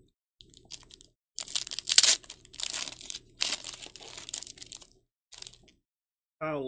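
Foil wrapper of a Panini Recon basketball card pack being torn open and crumpled by hand: a run of crinkling and tearing, loudest about two seconds in.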